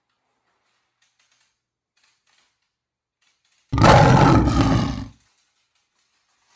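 A dinosaur roar, loud and about a second and a half long, starts suddenly about two-thirds of the way in. Near silence comes before it and after it.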